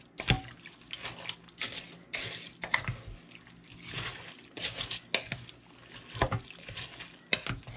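A wooden spoon stirring a wet mix of chicken, broccoli, rice, condensed soup and chicken broth in a ceramic crock pot: irregular wet sloshing with occasional sharp knocks.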